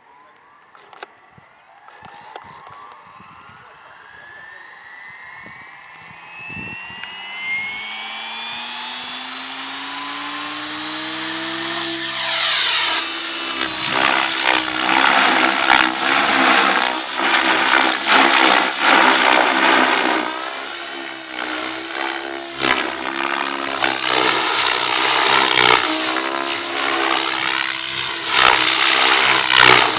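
Mikado Logo 700 electric RC helicopter spooling up: the whine of its motor and rotor rises steadily in pitch over about ten seconds. It then lifts off and flies, louder, its pitch rising and falling as it manoeuvres.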